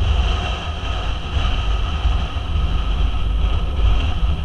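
Motorcycle riding at steady cruising speed, heard as heavy wind rushing and buffeting over the microphone with the engine running underneath.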